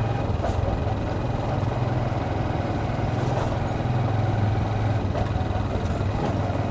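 Vehicle engine running steadily as it drives: an even, low hum with no change in pace.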